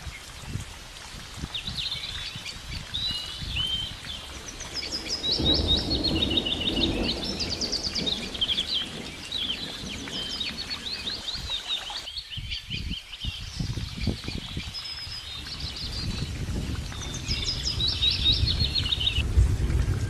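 Small songbirds singing, a dense chorus of quick chirps and rapid trills, over a low rumbling background noise.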